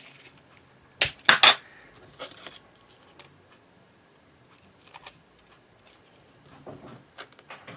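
Clear sticky tape being peeled off and torn: a few sharp crackling rips close together about a second in, then faint scattered clicks of handling.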